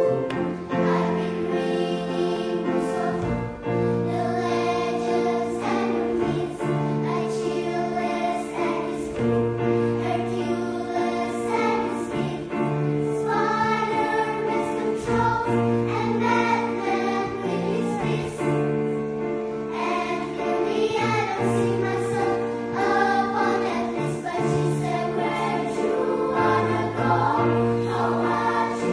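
A choir singing in several parts, holding long chords.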